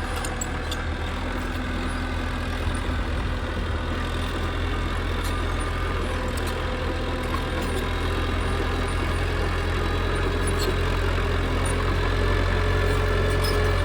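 Engine idling steadily, its low rumble growing slightly louder toward the end.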